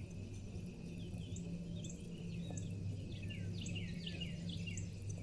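Small birds chirping, with a quick run of short falling chirps from about three seconds in, over a steady low hum.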